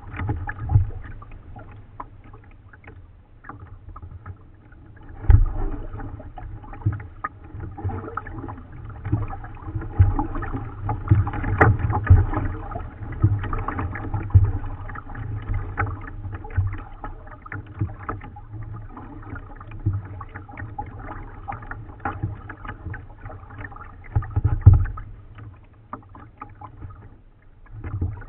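Kayak being paddled: irregular paddle splashes and water sloshing against the plastic hull, with occasional low thumps.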